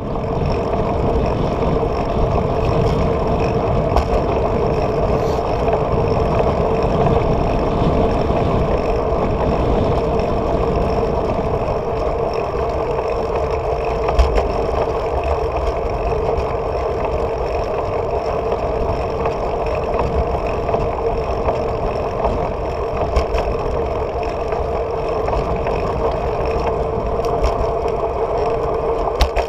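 Steady riding noise from a bicycle rolling along asphalt: wind rumbling on the handlebar-mounted microphone and road noise under a constant hum, with an occasional small knock.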